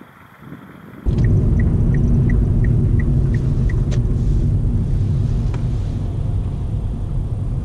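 Loud, steady road and engine rumble heard inside a car driving through a tunnel, cutting in suddenly about a second in. For the next few seconds a light tick repeats about three times a second.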